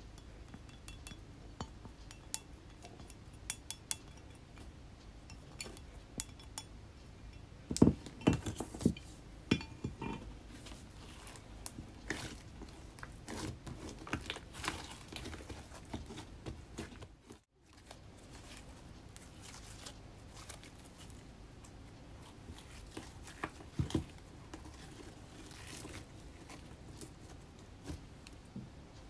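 Hands kneading and squeezing soft pink slime with powdered makeup worked into it: a steady run of small sticky clicks and squelches, with louder clusters of clicks now and then.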